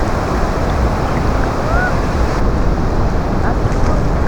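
Sea waves and wind buffeting the microphone: a loud, steady noise heaviest in the low end.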